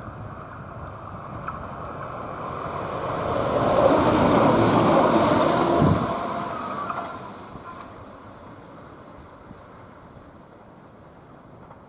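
A short railcar passing by, growing louder to a peak about four to six seconds in, then dropping off sharply and fading away.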